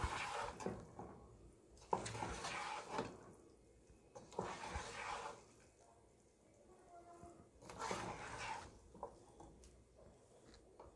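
Black spatula tossing and mixing boiled noodles with stir-fried vegetables in a pot: four soft scraping swishes, roughly one every two seconds.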